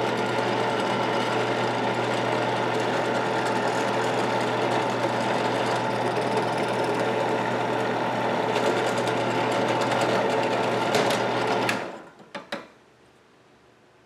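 Benchtop drill press running steadily, its motor humming, as the bit drills a 1/4-inch hole through a small strip of wood on a backup block. It stops about twelve seconds in, with a few light knocks as the work is lifted away.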